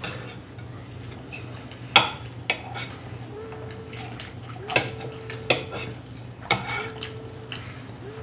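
Cutlery clinking against plates during a meal: a handful of sharp, scattered clinks.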